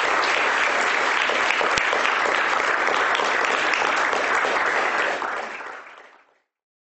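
Audience applauding steadily, then fading out over about a second near the end.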